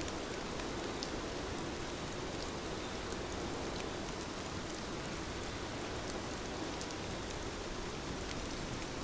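Steady rain falling, with scattered individual drops ticking through an even hiss.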